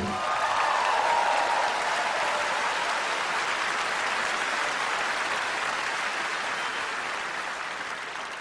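Theatre audience applauding, fading out near the end.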